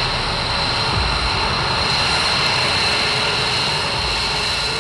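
F-22 Raptor's twin Pratt & Whitney F119 turbofans at taxi power: a steady high jet whine over a rush of exhaust noise.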